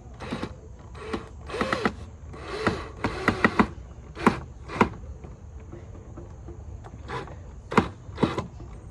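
Irregular knocks and clicks of wooden mud-kitchen parts, screws and a screw gun being handled during assembly, a few with a brief squeak, densest in the first few seconds.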